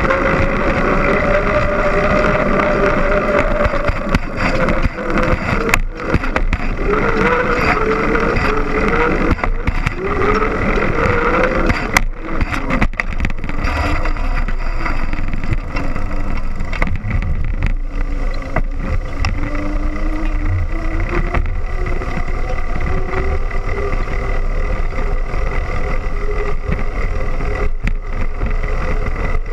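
Trek X-Caliber mountain bike rolling on pavement, heard from a camera mounted low on its frame: a steady rush of tyre and wind noise with a tyre hum that slowly rises and falls in pitch with speed. Two sharp knocks come about six and twelve seconds in.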